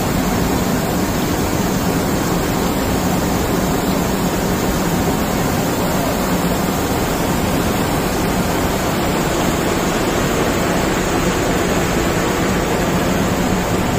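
Heavy rain falling, a loud, steady rush of noise.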